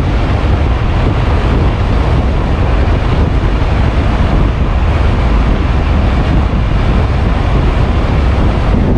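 Steady wind rush blowing over the rider's camera microphone as an electric motorcycle cruises at about 77 mph, heaviest in the low end, with no pitch or rhythm to it.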